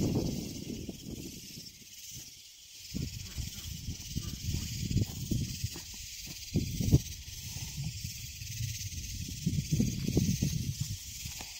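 Footsteps and camera handling on gravelly ground, heard as irregular low thuds and rustles with a sharp knock about 7 seconds in, over a steady high hiss.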